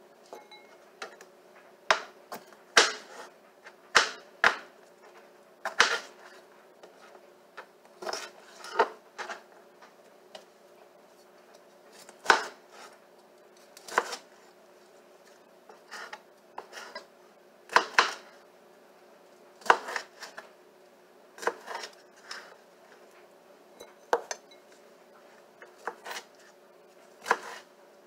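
A kitchen knife chopping fresh broccoli on a plastic cutting board: irregular sharp knocks of the blade striking the board, some in quick pairs, roughly one every second or two.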